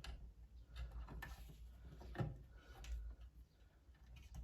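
Faint, scattered clicks and rustles of electrical wires being handled as the neutral wires are joined together under a wire nut.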